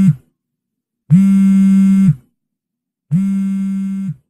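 A loud, low buzzing tone, sounded in blasts about a second long, two seconds apart. The last blast drops off slightly in level.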